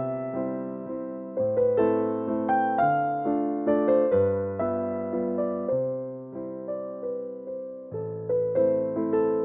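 Background music: a gentle electric piano melody, each note struck and left to fade, over slowly changing bass notes.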